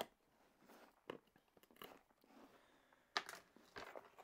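Packing tape on a cardboard shipping box being slit open, with faint crackling and scraping and a few sharp clicks, the loudest about three seconds in.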